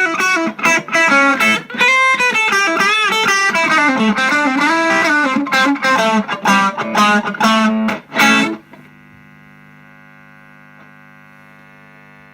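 Electric guitar overdriven through an Ibanez Tube Screamer Mini pedal, playing a quick run of notes and chords. About two-thirds of the way in, the playing stops and a single chord is left ringing, much quieter.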